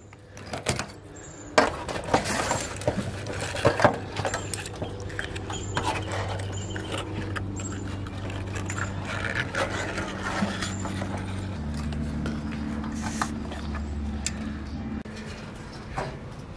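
A live sea urchin's spiny shell being cut open and its roe scraped out with a spoon: a run of sharp clicks, crunches and scrapes. Under them runs a low steady hum that drops lower about two-thirds of the way through.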